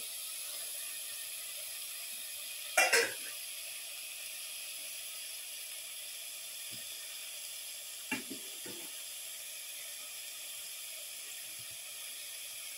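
Spice-marinated fish pieces frying in hot oil in a steel pot, a steady sizzle. A metal slotted spatula clatters against the pot about three seconds in, with two lighter knocks around eight seconds.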